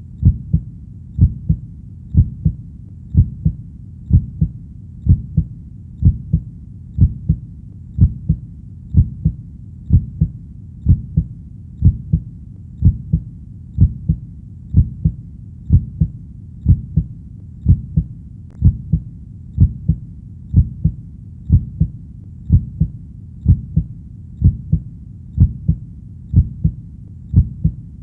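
Steady heartbeat: a low double thump, lub-dub, about once a second, evenly paced, over a faint low background rumble.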